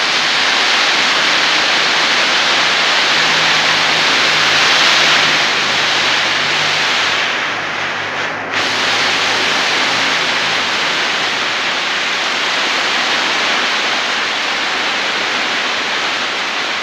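Heavy rain pouring down: a loud, steady rush that barely changes.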